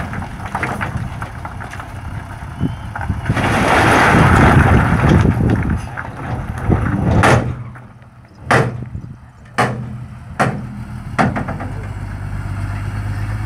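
Diesel dump truck running after tipping a load of stone, with a loud rushing rumble of stones sliding off the raised bed for a few seconds. Then five sharp bangs as the bed comes down and the tailgate clangs shut, over a steady engine hum.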